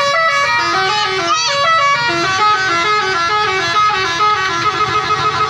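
Bus telolet horn, a set of multi-trumpet air horns, playing a fast tune of short stepped notes that runs on without a break.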